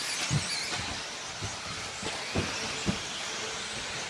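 1/10-scale electric off-road RC buggies running on a carpet track: a steady hiss of motors and tyres with faint high whines, and several short dull thumps.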